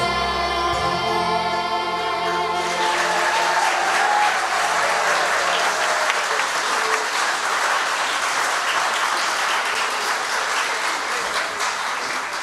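Children's voices and backing music hold a song's final chord, fading out over the first few seconds, while audience applause rises and fills the rest.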